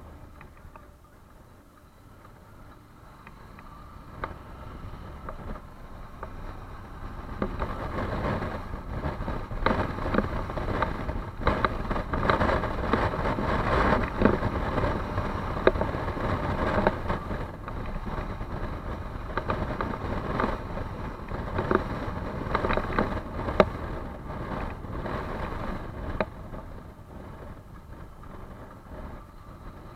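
A motor vehicle's engine at high throttle, building up over several seconds, staying loud through the middle with scattered sharp knocks, then easing off near the end.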